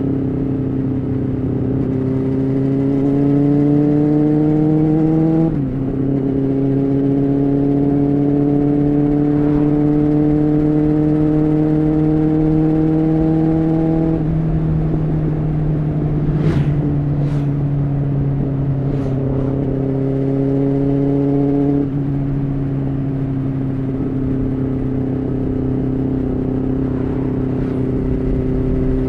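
Honda CBR600F3's inline-four engine running under way: the revs climb for a few seconds, dip briefly with a quick gear change about five seconds in, then pull slowly higher before the note steps down twice, around the middle and again about three quarters through, as the throttle is eased.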